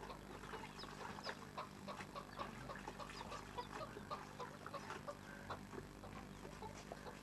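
Faint clucking of chickens, with many short scattered clucks and chirps overlapping throughout.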